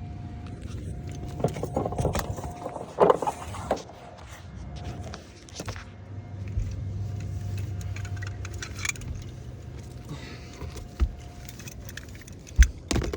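Clicks, rattles and knocks from handling an extension lamp cord and light fittings, with a sharp knock near the end. A steady low hum runs through the middle.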